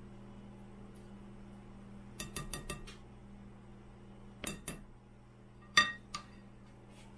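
Kitchen utensils clinking against a glass mixing bowl as cake batter is stirred and scraped. There is a quick run of about five light clinks, two more a couple of seconds later, then the loudest clink, which rings briefly, with a few soft taps after it.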